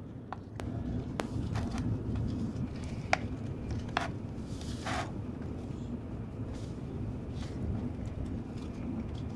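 Steady low rumble of a Tokaido Shinkansen passenger car running, with scattered light clicks of wooden chopsticks against a plastic bento box and a brief scrape about five seconds in.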